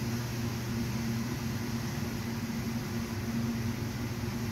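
Steady low motor hum of running equipment, an even drone with a few faint steady tones and no separate knocks or clicks.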